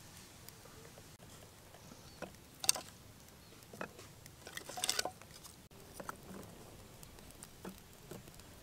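Dry split firewood sticks knocking and clattering as they are handled and laid in a clay stove: scattered sharp knocks, the sharpest a bit under three seconds in and a short run of them around five seconds in.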